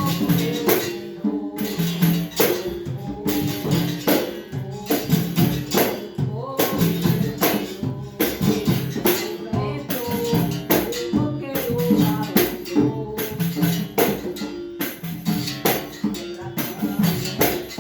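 Capoeira music: berimbau played in a steady rhythm with sharp percussion strikes and singing.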